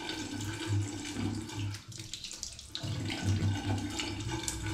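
Water running from a tap into a bathroom sink, easing off briefly about two seconds in.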